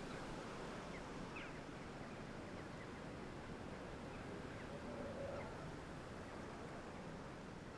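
Faint outdoor countryside background noise with a few short, scattered bird chirps.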